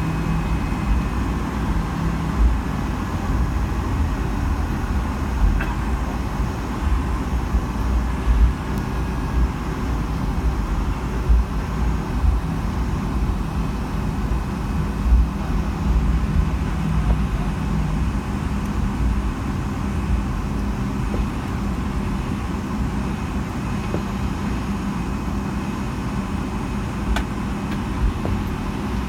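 Cabin noise of a Boeing 757-200 taxiing after landing: a steady deep rumble from the idling jet engines and the wheels rolling on the taxiway, with a low hum and a few small bumps.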